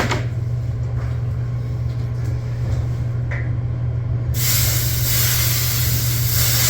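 A steady low machine hum, typical of a refrigerant recovery machine running, with a sharp click at the start. About four seconds in, a loud hiss of escaping gas starts and lasts about three seconds.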